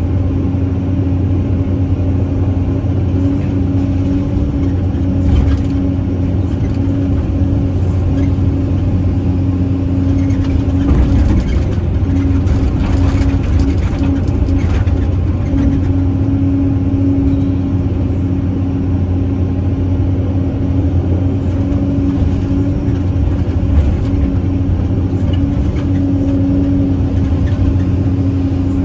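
CAT 320C hydraulic excavator's diesel engine running steadily under load while the boom and bucket work, heard from inside the operator's cab. There are a few faint knocks partway through.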